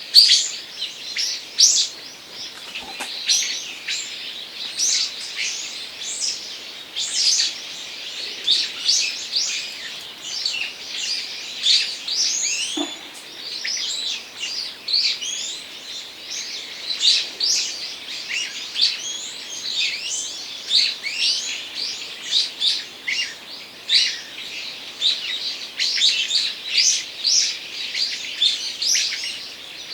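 A chorus of small birds chirping and calling in forest, with many short, high notes overlapping continuously.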